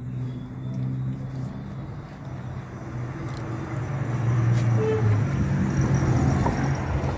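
A car engine running with a steady low hum, growing louder from about halfway through as wider road-type noise builds up.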